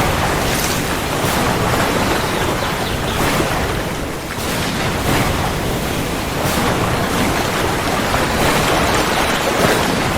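Heavy rain falling steadily, a dense hiss with a low rumble underneath, easing slightly about four seconds in and then building again.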